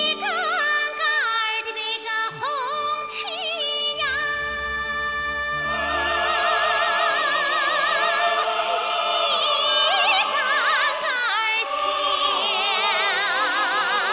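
A woman sings a Chinese folk-style song in a bright, high, piercing voice with strong vibrato, over instrumental accompaniment. About six seconds in the accompaniment grows fuller.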